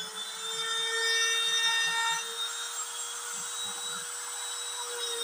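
Compact hand-router spindle of a small DIY CNC router running at a steady high whine while its bit carves into an MDF board, with the hiss of the cut beneath; a little louder for the first couple of seconds.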